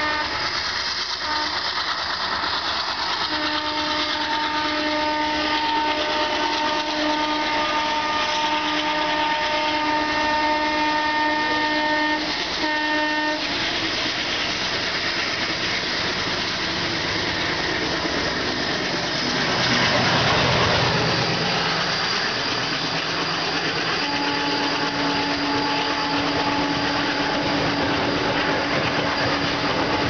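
WDG3A ALCO diesel locomotive sounding its horn in long blasts, with short breaks, for about the first thirteen seconds. Then the chugging of its diesel engine and the rumble of the approaching container train take over and swell about twenty seconds in. The horn sounds again for several seconds near the end as the locomotive draws alongside.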